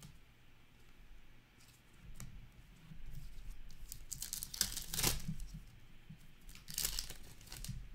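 Foil wrapper of an Upper Deck hockey card pack being torn open and crinkled by hand, with two short, loud rips, one about halfway through and one near the end.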